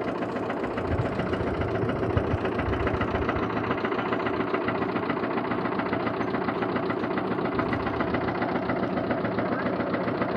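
An engine running steadily, with a fast, even rattle.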